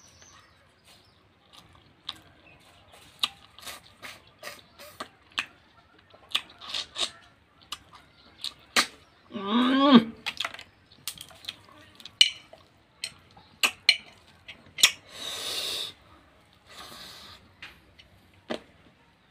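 Close-up eating sounds of a person eating snail curry by hand: many wet lip smacks and chewing clicks, with a longer slurp about fifteen seconds in as snail meat is sucked from the shell. A short voiced hum comes about ten seconds in.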